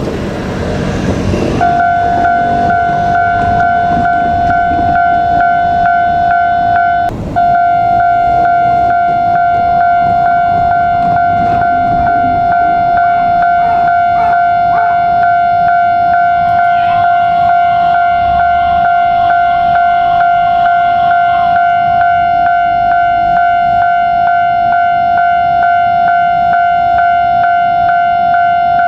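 Railway level-crossing warning bell starting about two seconds in and sounding on without a pause, a loud steady electronic tone, broken only for a moment about seven seconds in.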